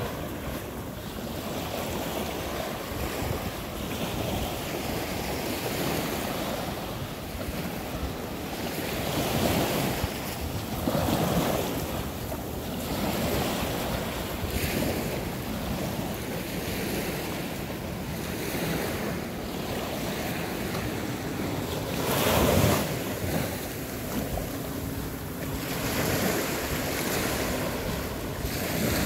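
Waves breaking and washing up the beach of a bay in surges every few seconds, the loudest about three quarters of the way through, with wind buffeting the microphone.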